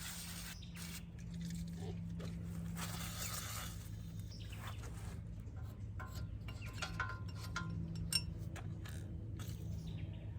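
Aerosol brake cleaner hissing out of the can onto the brake hub for about two seconds, followed by scattered metal clinks and scrapes, over a steady low hum.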